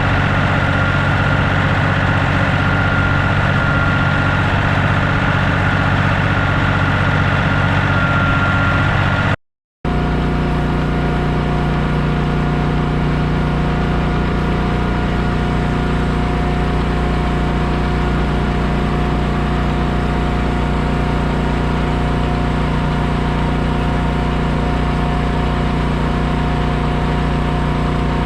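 Heavy paving-equipment engines running steadily. A brief dead silence about a third of the way in is followed by a different steady engine note.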